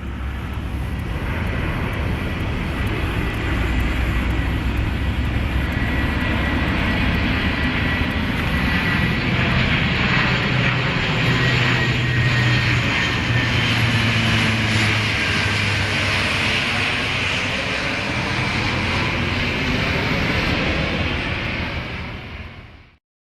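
Fixed-wing aircraft engines running loudly as an airplane passes, with a steady high whine that dips slightly in pitch midway and a low hum underneath. The sound cuts off abruptly near the end.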